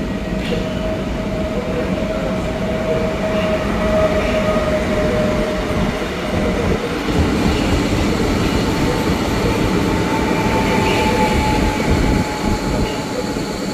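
A Pesa Elf EN76 electric multiple unit pulling out and passing close, with steady wheel-on-rail rumble. Over it runs the electric whine of the traction drive, which moves to a higher tone about halfway through as the train gathers speed.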